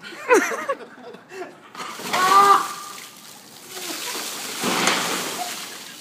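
Buckets of ice water poured over a seated man's head, the water pouring and splashing down onto him and the brick paving, heaviest near the end. Voices shout and laugh over it, about two seconds in and at the very start.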